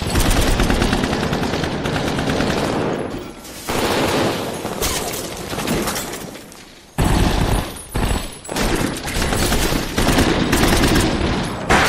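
Heavy gunfire exchange: rapid, dense volleys of rifle and handgun shots. There is a brief lull about three seconds in, and the firing fades near six seconds before loud fire starts again suddenly at about seven seconds and keeps on in bursts.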